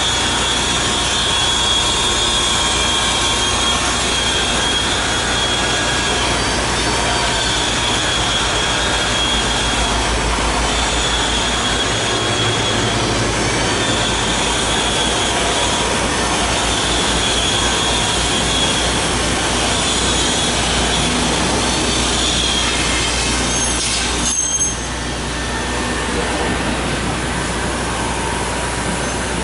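OPP film triangle folding machine running: a steady clatter and hum of motors and turning rollers, with a high squeal that swells and fades every couple of seconds as the film runs over the rollers. The sound dips briefly and turns a little quieter near the end.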